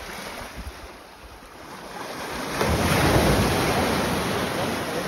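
Sea surf washing in over a rocky, weed-covered shore, swelling about two seconds in and easing off again, with wind on the microphone.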